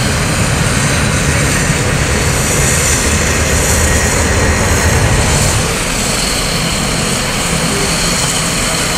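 Jet aircraft noise: a steady high whine over a low rumble, the rumble easing about six seconds in.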